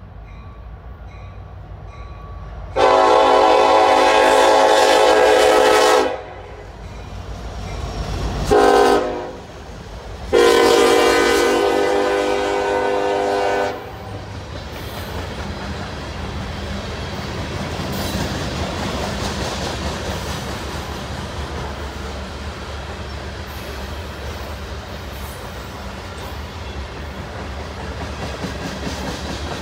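Freight train locomotive horn sounding three blasts, long, short, long, as the lead Union Pacific SD70ACE and trailing CSX unit approach and pass a grade crossing. The horn then stops and the long mixed manifest rolls by with a steady rumble and clickety-clack of wheels over rail joints.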